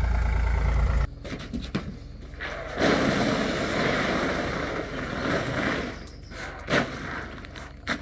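A low rumble in the first second. Then a tubful of soaked chickpeas pours from a plastic tub onto a sheet for about three seconds, a steady rattling hiss, followed by a couple of light knocks.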